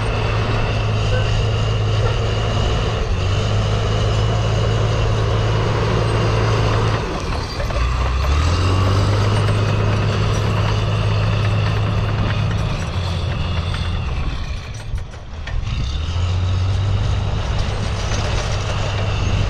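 Heavy diesel engine of a tracked earthmoving machine running hard, with its pitch shifting about eight seconds in and the sound briefly dropping away around fifteen seconds.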